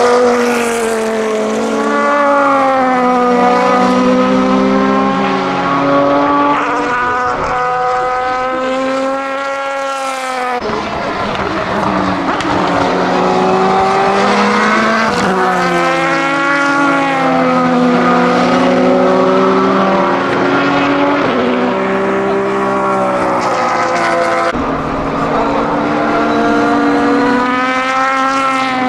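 Aston Martin DBR9 GT1's naturally aspirated 6.0-litre V12 racing engine going past at speed, its pitch repeatedly climbing and dropping as it accelerates and shifts gear. It is heard in three passes joined by abrupt cuts, about ten seconds in and near the end.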